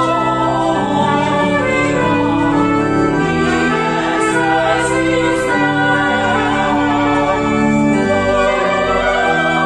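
Small group of voices singing a hymn in parts over sustained organ chords, the low notes held long and changing step by step.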